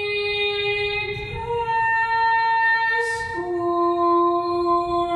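A woman singing slowly, holding each note for more than a second: the voice steps up about a second and a half in, then drops to a lower note a little past halfway.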